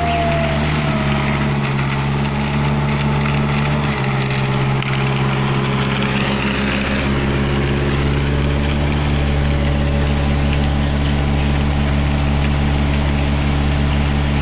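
Diesel engine of a self-loading concrete mixer running steadily, its note shifting slightly about four seconds in.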